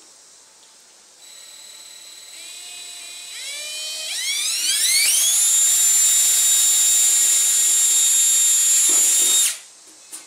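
Handheld power drill boring a hole in the vehicle's front fender sheet metal. The whine rises in pitch over a few seconds, holds steady and high, then stops suddenly about a second before the end, followed by a short click.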